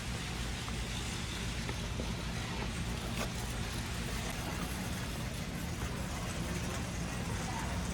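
Steady low rumble of a car running, engine and road noise, with a few faint clicks.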